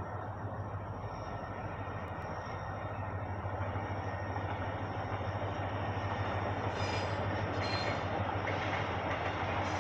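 Korail Mugunghwa-ho passenger train approaching and passing at a distance, its running noise growing steadily louder, with a few short high-pitched squeals near the end.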